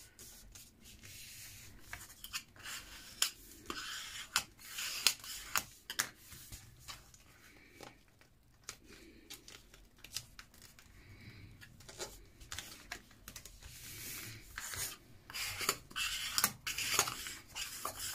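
Adhesive craft foil and paper being handled, folded over a notebook cover's edges and rubbed down: irregular rustling, crinkling and rubbing with scattered small clicks, busiest near the end.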